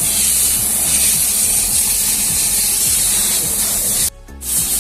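Compressed air hissing steadily from an air gun, blowing out an excavator's air filter to clean it. The hiss breaks off briefly near the end, and a low hum runs underneath.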